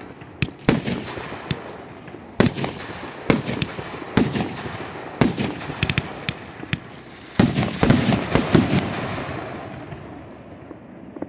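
Ground-launched fireworks firing shot after shot: sharp bangs about one a second, with a steady hiss between them. A quick run of four bangs comes near the end, then the noise fades away.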